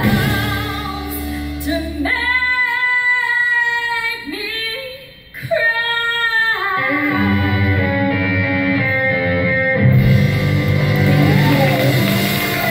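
Female singer holding long sung notes with vibrato over a live band of guitars, keyboards and drums, with a brief drop in the music about five seconds in before the band comes back in fuller.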